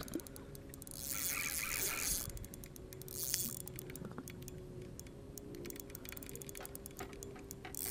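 Fishing reel ticking in rapid, uneven runs of clicks while a hooked smallmouth bass is fought, with a brief rush of noise about a second in and a steady low hum underneath.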